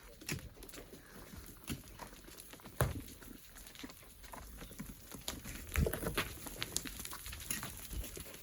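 Hand tools working a sand and rock cliff face: irregular knocks and scrapes, the two loudest about three and six seconds in, with smaller clicks between them.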